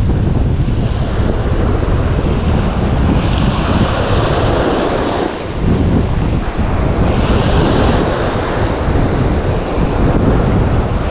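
Surf breaking and washing up a sandy beach, swelling twice, about three and seven seconds in, under heavy wind buffeting on the microphone.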